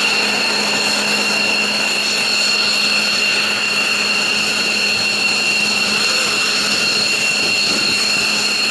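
F-15J fighter's jet turbine running steadily on the ground during engine start: an even, high-pitched whine over a broad rush of jet noise, with no change in pitch.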